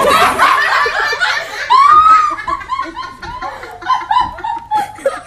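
A person laughing, with the loudest high rising-and-falling laugh about two seconds in.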